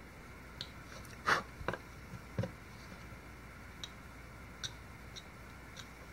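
Chip carving knife cutting into wood: a scatter of short, faint ticks and scraping slices as small chips are cut free, the loudest a little over a second in.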